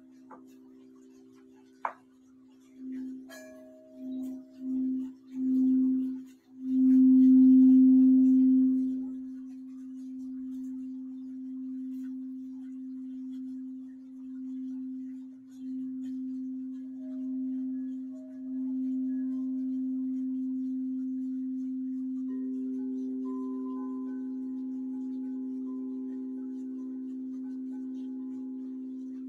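Crystal singing bowls played with a mallet: a few pulsing swells on one low bowl build to the loudest point about seven seconds in, then ring on as a steady drone. A second, higher bowl joins about twenty-two seconds in.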